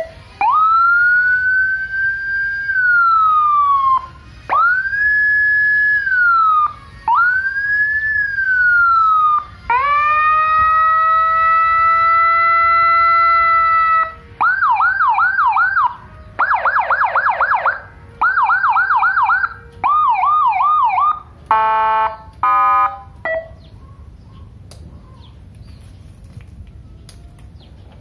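Electronic siren played through a Landun YHD 100W horn speaker, stepping through its tones: three wails that rise, hold and fall, a steady horn blast of about four seconds, four bursts of fast yelp and warble, and two short pulsed blasts, then it stops.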